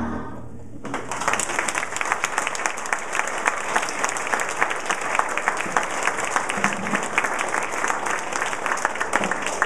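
Audience applauding after a choir's song has ended: the applause breaks out about a second in as many hands clapping together, and keeps going steadily.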